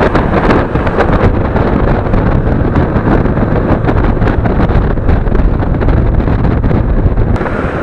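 Wind buffeting the microphone of a moving motorcycle, over a steady low rumble of engine and road noise. The sound drops abruptly near the end.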